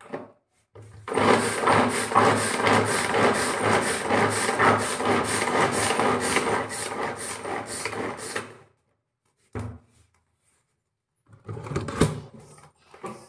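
Hand-pulled cord vegetable chopper chopping onion and green chilli: rapid, even pulls of the cord spin the blades with a whirring rattle, about two or three strokes a second, for some seven seconds. After a pause, a short burst of pulls and a sharp click near the end.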